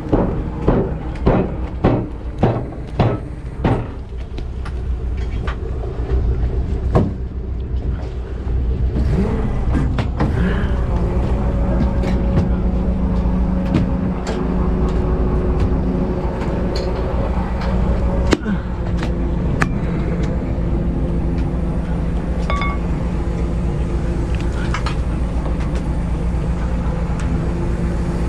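A fishing boat's engine and deck machinery running steadily with a low drone, with a few separate knocks and clicks on deck. For the first few seconds a run of sharp thumps comes about twice a second.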